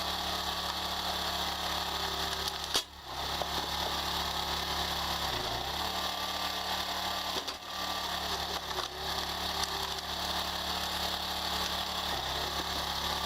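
A homemade wood splitter's motor running steadily with a low, even hum. It breaks off briefly about three seconds in and again near the middle.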